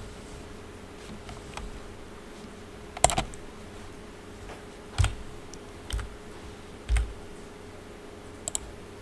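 Scattered clicks of a computer keyboard and mouse, about six separate presses at uneven intervals, the first about three seconds in the loudest and a quick double click near the end, over a faint steady hum.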